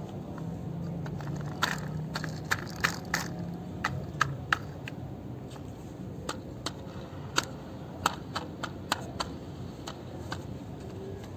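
Irregular sharp clicks and knocks of hard plastic being handled: a small plastic toy wheel-and-fork part turned over in the hands, about twenty taps over several seconds.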